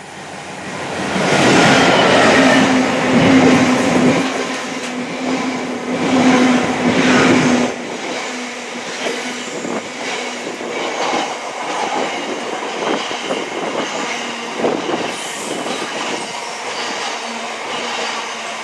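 Train passing close by on the railway line. It builds over the first second or two and stays loudest, with a steady hum, for about the first eight seconds. It then drops to a lower, continuing clatter of wheels over the rail joints.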